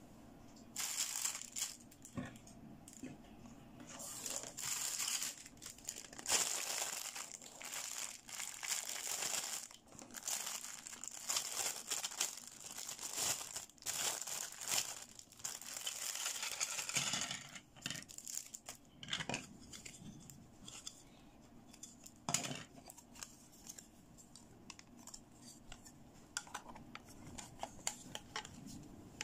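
Clear plastic packaging bag crinkling and rustling in repeated bursts as white plastic toy chair parts are unwrapped. In the last part this gives way to a few scattered light plastic clicks and taps as the chair pieces are handled and fitted together.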